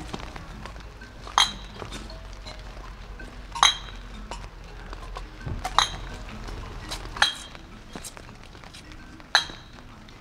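Five sharp, bright clinks of a small hard object, roughly one every two seconds. Each rings briefly at the same high pitch. Faint music sits beneath them.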